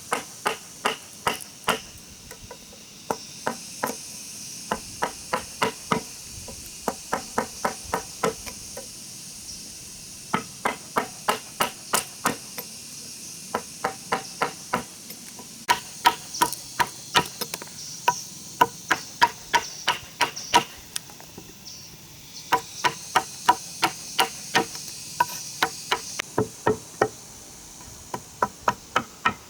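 A hammer driving nails into wood, in runs of quick, even blows about three a second with short pauses between runs. Insects buzz faintly in the background at times.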